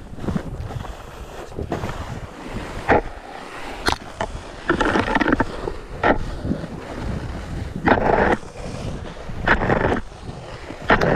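Snowboard sliding over snow as the rider pushes himself along with ski poles, a scraping hiss that surges with each push, about every one and a half to two seconds. Wind buffets the microphone throughout.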